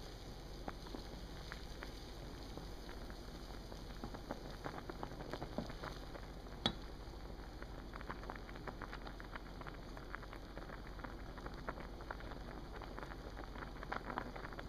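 Pot of water at a rolling boil, bubbles popping and crackling steadily. One sharper click about six and a half seconds in.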